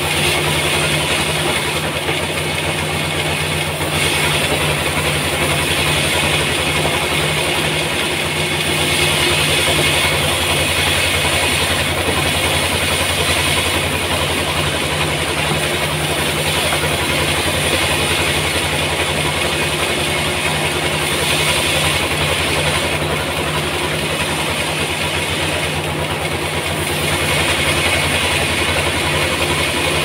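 Large band sawmill running and cutting lengthwise through a wide, flat trembesi (rain tree) log: a steady, even machine hum.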